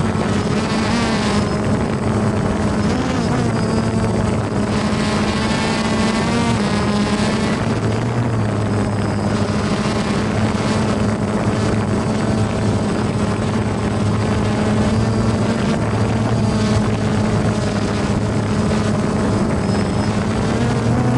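Small quadcopter drone's propellers and motors buzzing steadily close to the microphone, the pitch shifting up and down a little as it manoeuvres.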